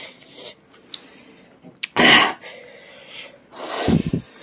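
A man breathing hard through a burning mouth after eating an extremely hot chili chip: two loud, sharp gasps or snorted exhales, about two seconds in and again near the end.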